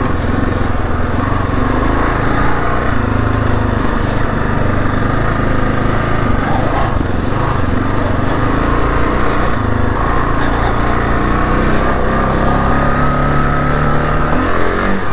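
Kawasaki KLR 650's single-cylinder engine running steadily as the motorcycle putts along a dirt trail at low speed.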